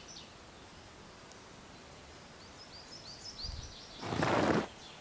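Small birds chirping, a string of short high chirps over a faint outdoor background, then about four seconds in a short, loud burst of rustling noise lasting under a second.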